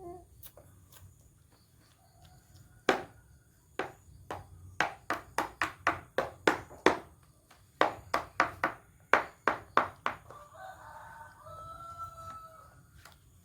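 A quick run of sharp knocks, about fifteen, the loudest sounds here, from about three seconds in to about ten seconds in. Near the end a rooster crows once, a drawn-out call of about two seconds.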